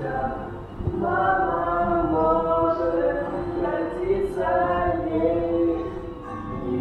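A choir singing long held notes, several voices together, in phrases with short breaks between them.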